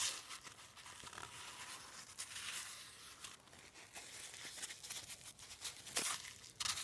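Crumpled paper towel wiping lapping compound off a valve seat in a cylinder head: a series of faint rubbing and crinkling strokes, with louder ones near the start and about six seconds in.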